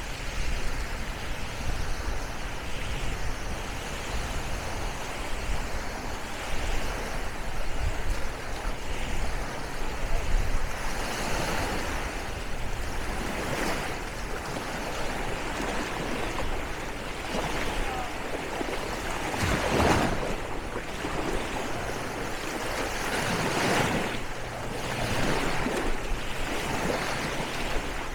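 Small waves washing in on a sandy beach in a steady hiss, swelling several times as waves break, most strongly about two-thirds of the way through and again a few seconds later.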